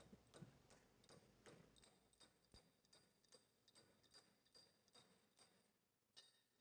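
Near silence with faint, short clicks, roughly two or three a second, fading out near the end.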